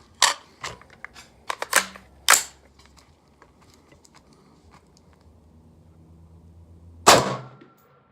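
Daniel Defense Mk18 5.56 AR pistol firing: several sharp cracks and clicks in the first two and a half seconds, then a lull and one loud shot about seven seconds in, trailing off over about half a second.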